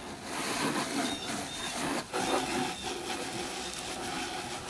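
Garden hose spray nozzle hissing steadily as it sprays a fine mist of water onto cardboard boxes and grass.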